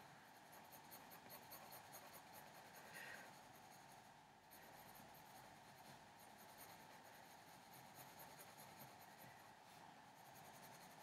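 Faint scratching of a colored pencil shading on paper in short, repeated strokes.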